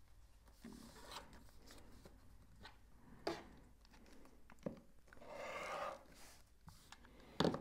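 Faint handling sounds of a paper foundation and fabric being moved and pressed under an acrylic ruler: soft rustles and taps, a sharper tap about three seconds in, and a longer rub about five seconds in.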